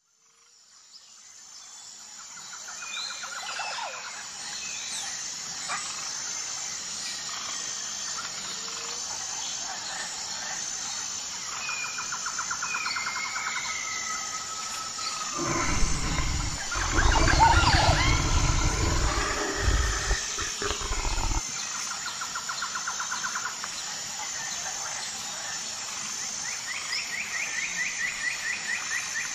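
Outdoor birdsong: several small birds chirping and giving quick trills, fading in over the first few seconds. About halfway through, a loud low rumble lasts around six seconds.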